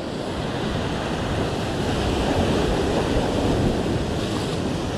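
Sea waves breaking and washing against a rocky shoreline: a steady rushing surf that swells slightly in the middle.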